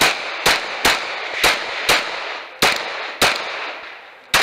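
Glock 19 9mm pistol fired in a fast string: about seven shots roughly half a second apart, spacing out a little toward the end.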